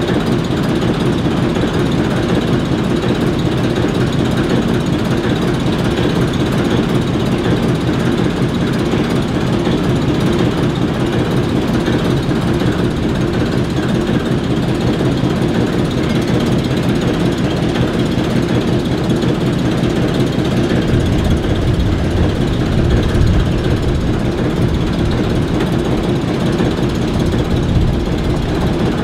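ALCO S4 and S7 switcher locomotives idling, their turbocharged six-cylinder 539 diesels giving a steady, loud rumble. The deepest part of the rumble grows heavier for several seconds in the second half.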